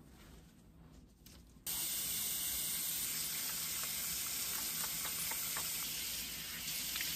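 Water running from a tap into a sink. It comes on suddenly about two seconds in as a steady hiss, with a few small splashes, and cuts off sharply.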